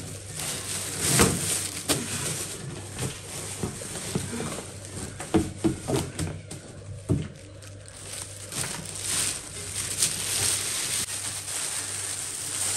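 Plastic wrapping rustling and crinkling as an air fryer is lifted out of its cardboard box and unwrapped, with scattered knocks and clicks from handling the box and appliance.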